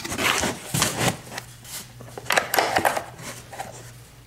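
A 12-volt ride-on-toy battery being handled into its cardboard box: an irregular run of cardboard scrapes, rustles and knocks.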